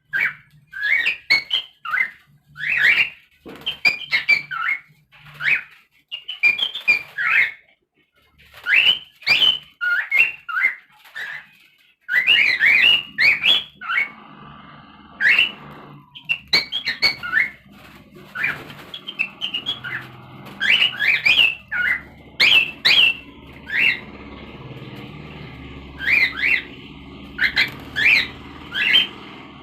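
Pet cockatiel whistling: a long run of short, quick whistled notes and chirps that slide up and down in pitch, repeated in phrases.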